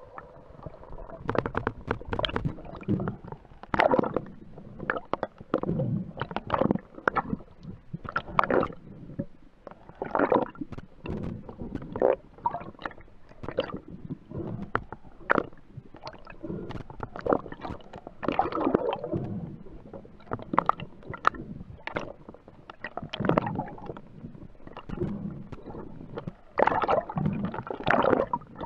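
Underwater handling noise as a spearfisher grips and handles a speared European sea bass: irregular knocks and clicks with gurgling water movement between them.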